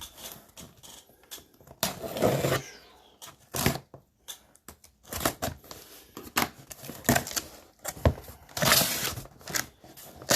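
Irregular clicks, taps and rustles of trading card boxes being handled, with a few longer rustling scrapes about two seconds in and near the end.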